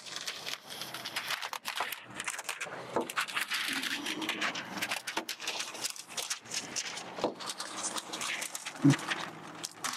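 Clear plastic film liner crinkling and crackling as it is peeled back while an application tool presses transfer film flat onto window glass: a continuous run of small crackles and clicks.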